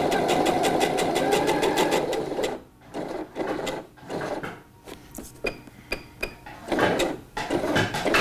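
Sewing machine stitching a straight seam at a steady speed, stopping about two and a half seconds in. Scattered clicks and knocks follow as the needle is set down in the fabric and the work is handled.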